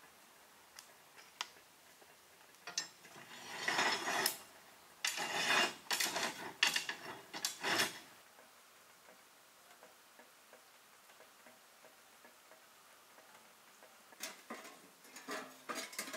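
Metal clanking and scraping on a cast-iron wood-stove top as the stove's ring lids are worked with a metal hook, in a run of loud bursts. A few lighter clatters come near the end.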